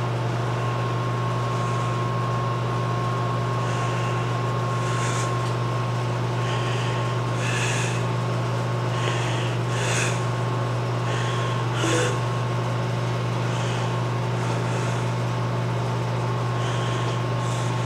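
Steady low machine hum with a thin steady high tone, and a few faint brief clicks scattered through it.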